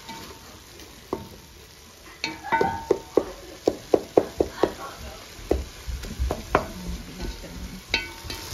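Wooden spoon stirring minced chicken frying in a stainless steel pot, knocking against the pot's sides. A quick run of ringing taps, about four a second, comes about two seconds in and lasts a couple of seconds, with single knocks before and after.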